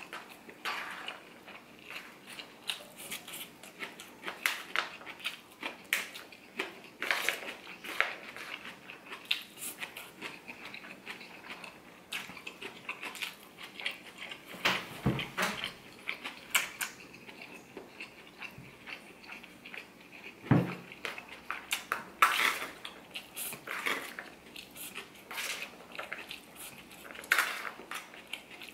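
Close-up eating sounds: a metal fork clicking and scraping in an aluminum foil pan of meat and rice, with chewing between bites. Two dull thumps stand out, about halfway through and again some five seconds later, the second being the loudest sound.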